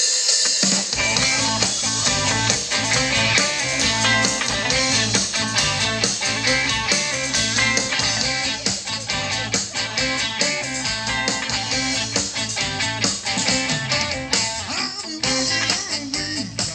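Live blues band playing: electric guitar to the fore over bass and drums keeping a steady beat.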